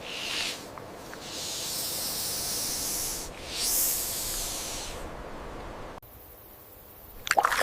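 A snake hissing: a short hiss, then two longer ones.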